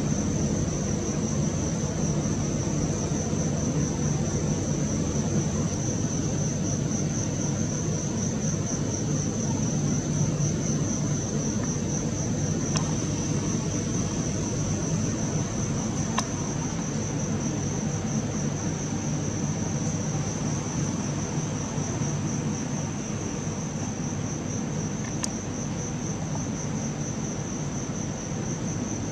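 Crickets chirring in a steady, high, continuous trill, over a low steady rumble.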